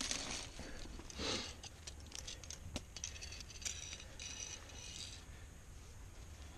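Metal climbing gear clinking as it is handled: carabiners and protection knocking together, with several sharp clicks and short ringing jingles, the jingles clustered in the middle.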